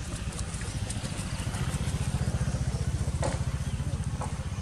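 A small engine running steadily, a low rumble with a fast, even pulse, with a couple of light clicks over it near the end.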